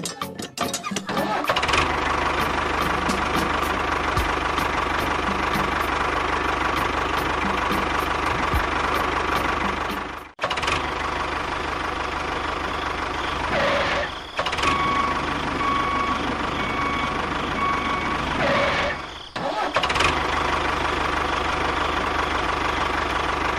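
Small motor of a home-built model machine running steadily, with three brief drops where it stops and starts again.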